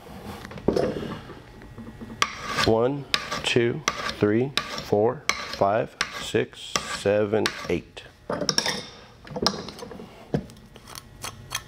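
Hardened steel burnisher drawn again and again along the edge of a steel card scraper clamped in a vise: a series of short metallic scraping strokes, each with a squealing pitch that bends up and down. This is the burnishing stroke that rolls a cutting hook onto the scraper's edge.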